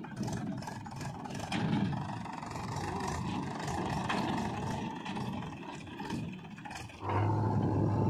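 Diesel engines of a Mahindra 475 DI tractor and a JCB 3DX backhoe loader running, with scraping and clattering from the earthmoving. About seven seconds in it turns louder, with a steady low engine hum.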